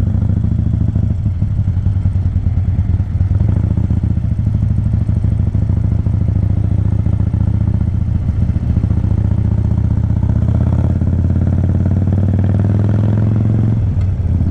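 Harley-Davidson Sportster 1200's air-cooled Evolution V-twin running loud through an aftermarket flap exhaust as the bike pulls away and rides in first gear. The revs climb steadily toward the end, then drop briefly just before it ends.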